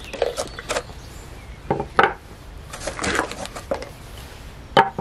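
Machined steel roller parts being taken from a cardboard box and set down on a wooden bench: a few knocks and clinks of metal on wood, the sharpest about two seconds in and just before the end.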